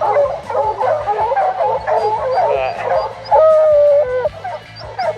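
A pack of hunting hounds baying treed, many voices bawling over one another, with one long drawn-out howl a little past the middle that is the loudest sound.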